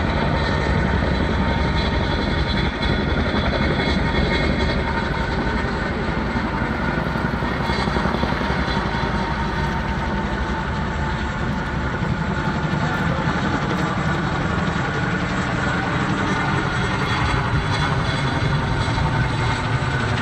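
Boeing CH-47 Chinook tandem-rotor helicopter flying, with a steady, continuous rotor and engine noise that never lets up.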